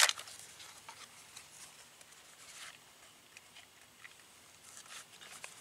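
Small clicks and light rattles of 350 Legend cartridges being handled, opening with one sharp click, with a few short rustles after it.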